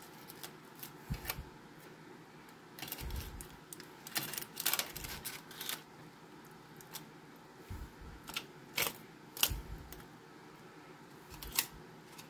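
Aluminium foil crinkling and light clicks as a foil-lined baking pan is handled, with a few soft bumps, at an irregular pace.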